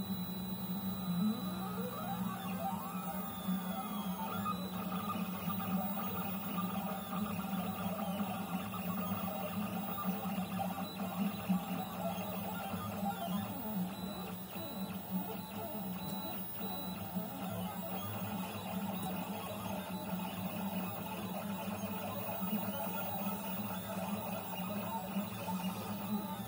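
Stepper motors of an MPCNC (Mostly Printed CNC) driving a pen across paper, whining in tones that glide up and down as the axes speed up, slow and change direction, over a steady low hum.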